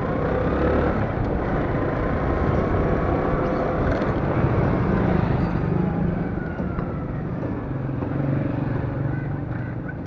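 Road traffic noise with a vehicle engine running steadily, as heard while moving along a busy street.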